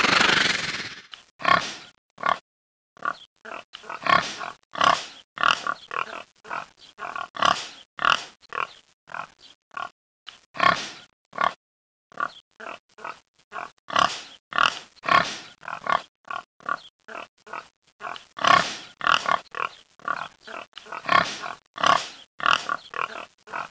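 Wild boars grunting over and over: short pig-like calls about two a second, with brief gaps, after a short swell of noise in the first second.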